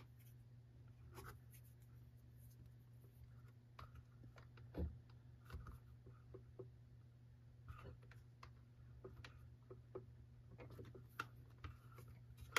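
Faint handling noise: small clicks and scratchy rubbing as new plastic fuel line is worked through the hole in a string trimmer's plastic fuel tank, with one louder knock about five seconds in, over a low steady hum.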